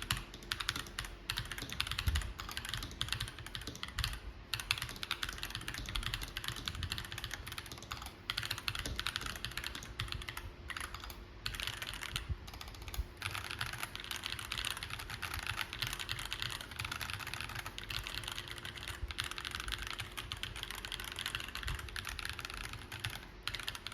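Typing test on a NuPhy Halo 65 mechanical keyboard fitted with factory-lubed AKKO Cream Yellow Pro v3 linear switches: a fast, steady run of keystrokes with a few short pauses. The sound is somewhat deeper than with the Gateron Baby Raccoon switches that came out, though still very similar.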